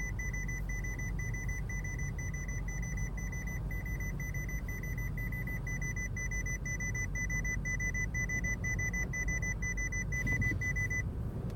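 Rapid electronic beeping, a single high-pitched tone repeating evenly about three to four times a second, that stops abruptly near the end, over a low steady rumble.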